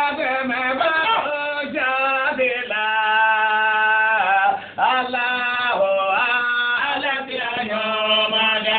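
A man's voice chanting a melodic line, with long held notes that waver and slide between phrases and a short pause for breath about midway.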